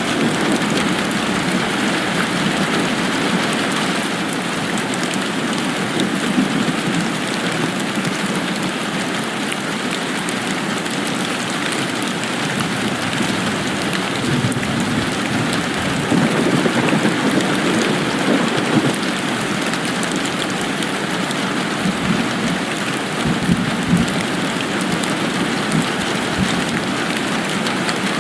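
Steady, dense rain falling, with a few low rumbles in the second half.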